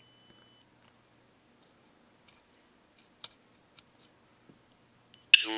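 A few faint clicks from the Plant Whisperer's circuit board being handled and its button pressed, over a low electrical hum. Near the end its small speaker starts another robotic text-to-speech phrase from the Parallax Propeller microcontroller.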